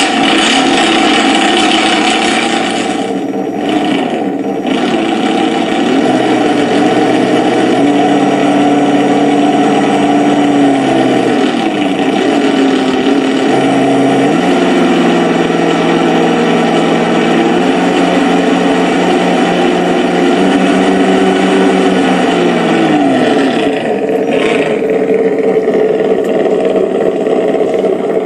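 Simulated engine sound from an ESS-One sound module in an RC monster truck, playing its stock out-of-the-box sound file. The pitch steps up and down as the revs change and settles back to idle about 23 seconds in.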